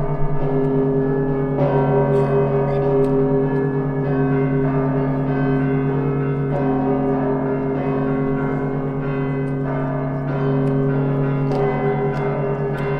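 Russian Orthodox church bells rung in a festal peal: a low bell's hum is held underneath while heavier strokes fall about once a second, with smaller bells chiming between them.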